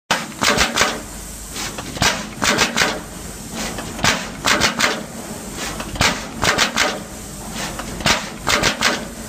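Through-hole auto insertion machine for PCB assembly running its cycle. Every two seconds comes a sharp clack, then about half a second later a quick run of three or four clacks, over a steady hiss.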